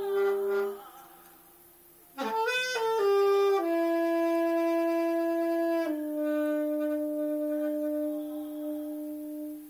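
Solo saxophone: a held note ends, and after a short pause a quick run of rising notes leads into two long held notes, the second a step lower and fading near the end.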